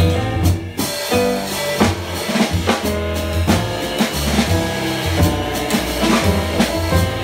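Jazz piano trio playing: grand piano, upright double bass, and a drum kit struck with sticks, the drums prominent throughout.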